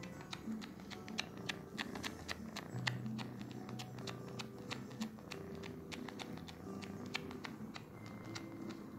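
Kitten suckling on a cotton t-shirt, making irregular sharp sucking clicks several times a second, over faint background music with low held notes.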